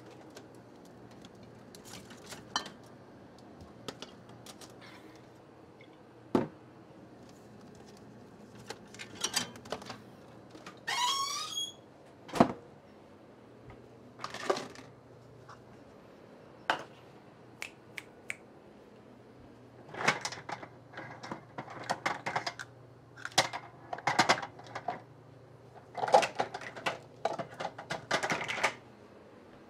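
Kitchen clatter of dishes and utensils knocking and clinking as they are taken from a dish drying rack, with a short wavering squeak about eleven seconds in; the clatter grows busier over the last ten seconds.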